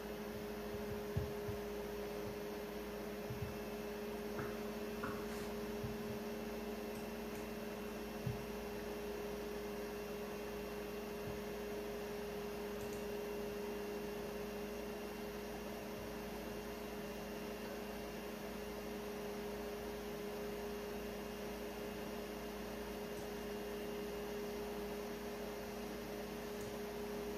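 Creality Ender 3 V3 KE 3D printer running with a steady hum from its fans and motors. A few light clicks come in the first several seconds.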